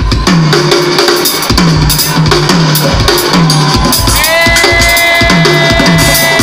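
Hip-hop beat played loud over a festival PA: drum kit hits with a deep bass note that slides down on each stroke. About four seconds in, a held synth-like tone comes in over the beat.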